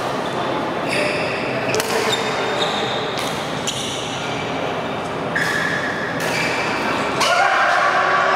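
Badminton rackets hitting a shuttlecock: several sharp smacks in the first few seconds, echoing in a large hall, with voices in the background.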